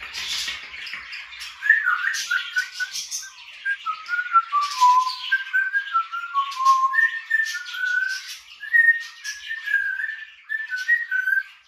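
African grey parrot whistling a tune: a run of clear notes stepping up and down, starting about two seconds in, over constant chirping and chatter of budgerigars.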